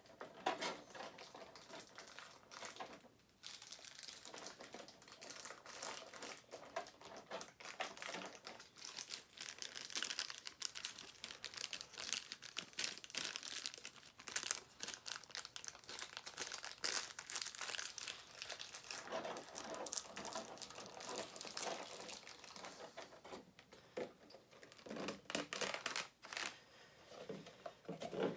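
Packing wrap being crinkled and folded by hand as a collectible figure is wrapped back up, an irregular run of rustles and scrunches.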